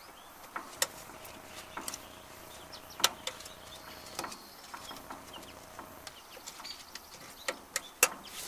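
Scattered sharp metal clicks and taps, spaced irregularly, as the wet-clutch adjuster of a 1959 Case 300B tractor is worked back a few clicks to loosen an over-tightened clutch.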